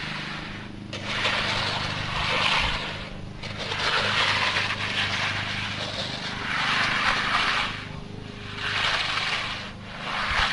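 Wet concrete being screeded: a scraping hiss that swells and fades about every two seconds as the screed is worked back and forth, over a steady low engine hum.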